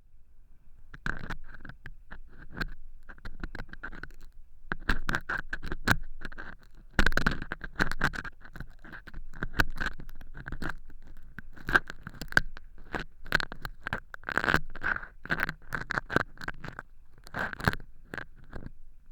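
Ear pick scraping through dry, crunchy fake earwax made of cork chips in a silicone ear model: a fast, irregular run of scratchy clicks and scrapes.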